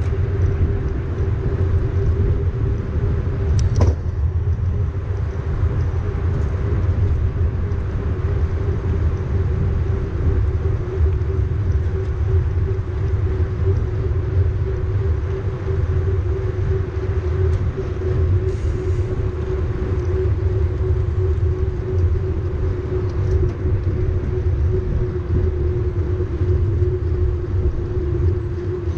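Wind rumbling on a bike-mounted camera's microphone as a mountain bike rolls on asphalt in a pack, with a steady hum from knobby tyres on the pavement. A single sharp click about four seconds in.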